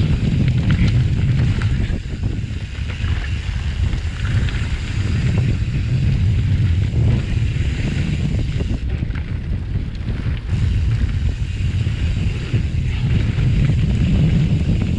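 Loud, steady wind rumble on the microphone of a camera riding on a mountain bike on a dirt trail. Tyre noise runs beneath it, with scattered light rattles and knocks from the bike going over rough ground.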